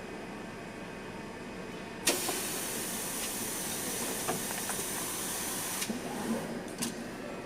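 Automatic patch pocket sewing machine: a steady machine hum, then about two seconds in a sharp clack and a loud air hiss that runs for nearly four seconds and cuts off suddenly, followed by a couple of clicks.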